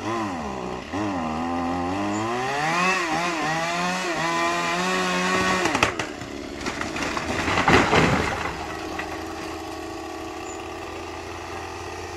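Two-stroke chainsaw cutting through a dead tree trunk, its engine pitch rising and falling under load for about six seconds. Then comes a few sharp cracks and a loud crash as the cut section of dry trunk breaks off and falls. The saw runs on more steadily afterwards.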